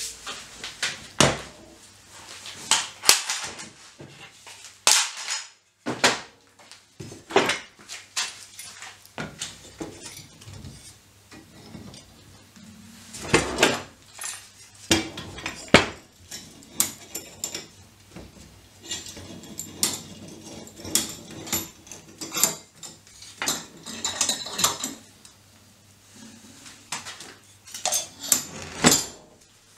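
Steel sash clamps clanking and knocking as they are handled and fitted around a glued wooden block: irregular metallic clicks and bangs of the steel bars and jaws against each other and against the wood.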